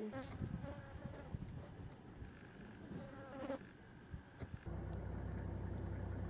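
An insect buzzing close by. A steady low buzz starts about three quarters of the way in and continues past the end.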